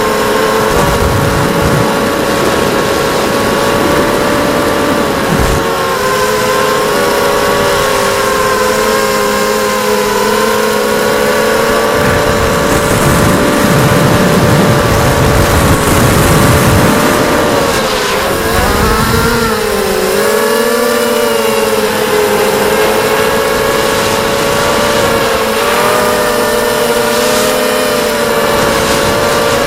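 ZMR250 racing quadcopter's brushless motors and propellers whining steadily in flight, the pitch wavering with throttle and dipping and recovering about two thirds of the way through. Bursts of low rumble come and go underneath.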